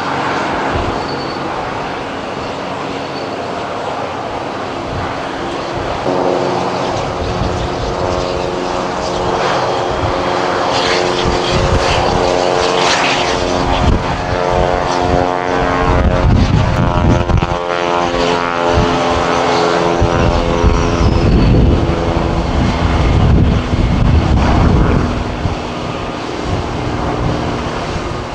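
Jet airliner engine noise on an airport ramp: a steady whine of several tones over a broad roar. It comes in about six seconds in, grows louder with bouts of low rumble, then eases near the end.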